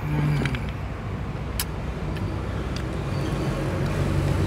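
A vehicle's engine rumbling steadily and growing louder toward the end, with a few sharp clicks.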